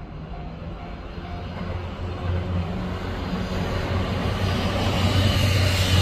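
JR Tokaido Line commuter electric train approaching and passing, its running noise and low hum growing steadily louder. A level-crossing warning bell dings about twice a second at first, then is lost under the train after a second or so.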